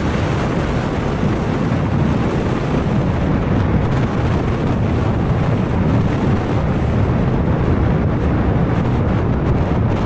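Steady, loud wind noise on an action camera's microphone from a moving motor scooter at around 40 to 60 km/h, mixed with the scooter's running and road noise.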